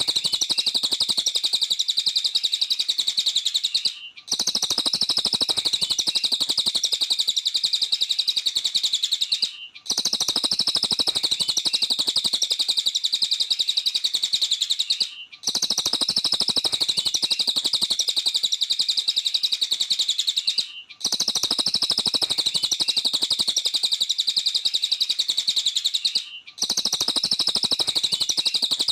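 Cililin bird singing a dense, rapid, high-pitched chattering song that goes on and on, broken every five seconds or so by a brief gap.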